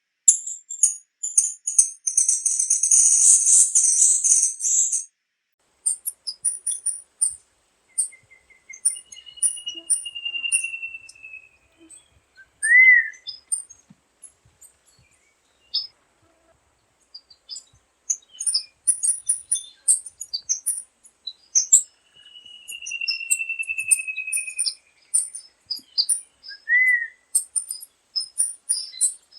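Tanagers calling: many short, very high chip notes, a dense high trill a couple of seconds in, and twice a long thin note that falls slightly in pitch, each followed by a short sharp call.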